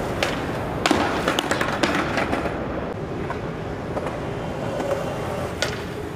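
Skateboard knocking and clattering on concrete: several sharp knocks in the first two seconds or so, then steady background noise with one more knock near the end.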